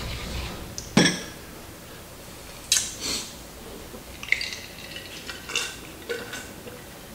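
Knocks and glassy clinks of a glass jar and dishes being handled on a table. The loudest is a sharp knock about a second in, followed by a run of ringing clinks around four to six seconds in as the jar of drink is picked up.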